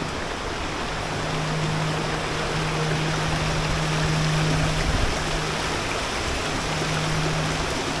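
Steady rushing of a stream's flowing water, an even hiss. Under it runs a low steady hum that drops out briefly a few times.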